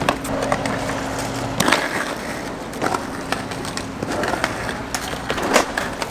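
Skateboards rolling on concrete, with several sharp clacks of boards hitting the ground, the loudest near the end.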